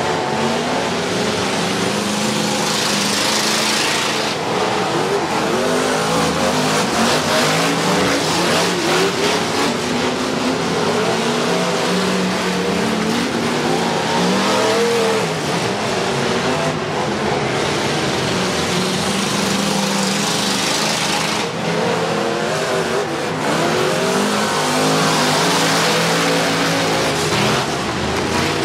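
Engines of a compact car and a pickup truck racing around a dirt oval track, their pitch rising and falling repeatedly as they rev up and ease off, the sound swelling several times as they come past.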